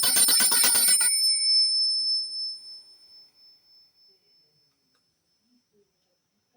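Small hand bell shaken rapidly, its clapper striking fast, then stopped about a second in. Its high ringing tone lingers and fades away over the next few seconds.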